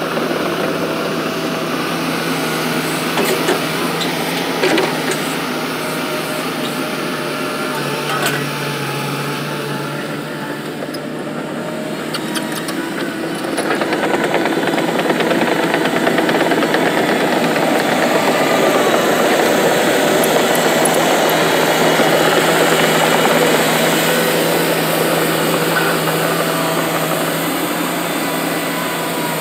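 A large Caterpillar excavator's diesel engine running steadily while digging and loading soil, growing louder about halfway through as it works harder.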